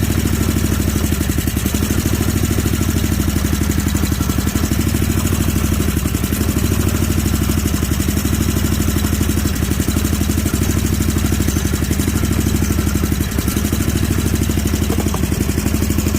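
Snapper Pro zero-turn mower's engine running steadily, its fuel freshly dosed with Seafoam to clean out a carburetor that the owner suspects is partly stopped up.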